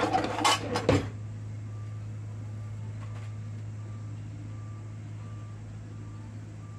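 A few quick clattering knocks as a hot cast-iron skillet is handled, then the steady hum of a countertop oven running as it preheats, with faint short beeps repeating every second or less.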